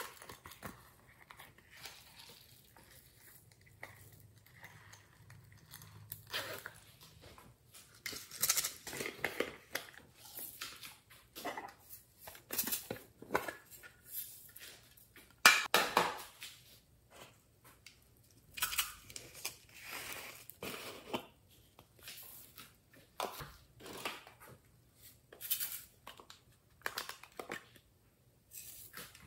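Small hard plastic cases being opened, tapped and handled, with glitter and sequins shaken out of them in short rustling bursts. Irregular clicks and knocks throughout, the sharpest about halfway.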